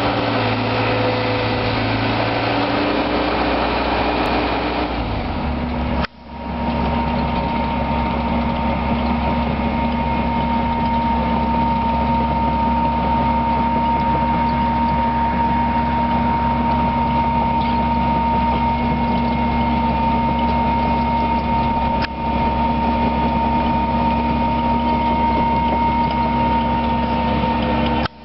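JCB JS130 tracked excavator's diesel engine running steadily as the machine travels on its tracks. The sound briefly drops out about six seconds in, after which a steady high whine runs alongside the engine.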